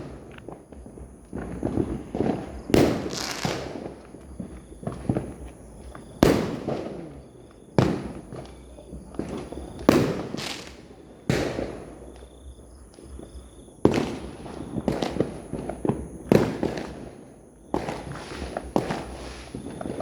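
Fireworks going off: a string of about a dozen sharp bangs at irregular intervals, each trailing off in an echoing rumble over a second or so.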